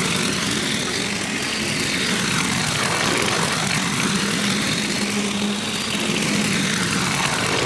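Lawn mower engine running steadily under load while cutting grass, its tone slowly sweeping up and down as the mower moves back and forth.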